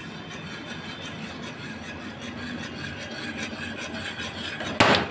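Wire whisk stirring thick brown sauce in a metal frying pan, a steady scraping rub against the pan, with one brief loud knock near the end.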